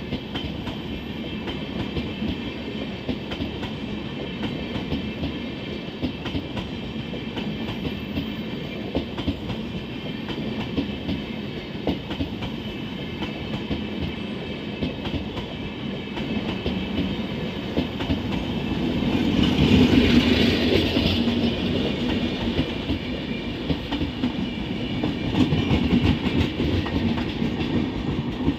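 Indian Railways passenger coaches rolling past at close range, wheels clattering over the rail joints in a steady clickety-clack. The noise swells to its loudest about two-thirds of the way through, and the luggage van at the rear of the train passes near the end.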